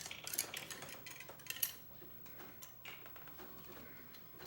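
Cleaning rod and patch being worked through a CVA Wolf muzzleloader's barrel: faint scraping with a few sharp metallic clicks.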